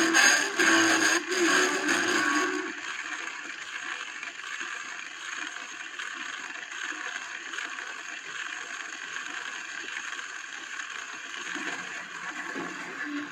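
1940s 78 rpm shellac record playing through a LEGO-built pickup arm: the last of the music sounds for about two seconds, then stops, leaving steady surface hiss and crackle as the needle runs on in the grooves past the end of the recording.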